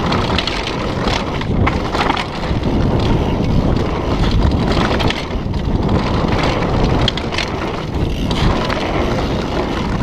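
Giant Reign X full-suspension mountain bike running fast down a dirt trail: wind on the camera microphone and tyres rumbling over dirt, with the bike rattling and clattering over bumps.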